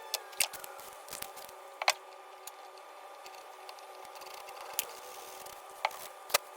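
A handful of short, sharp clicks and taps, spread out over a few seconds and growing more frequent near the end, over a faint steady hiss: small wooden box parts being handled and worked by hand.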